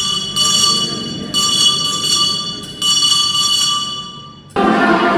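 Altar bells rung at the elevation of the host during the consecration, about four bright ringing strikes, each fading away. Near the end the ringing gives way abruptly to choir singing.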